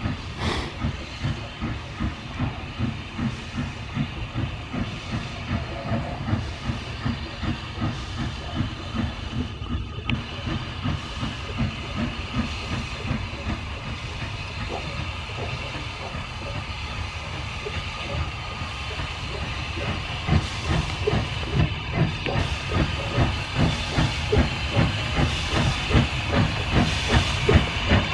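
Hunslet Austerity 0-6-0 saddle tank steam locomotive working a train, its exhaust beating in a steady rhythm with a hiss of steam. The beats grow louder over the last third as the engine draws nearer.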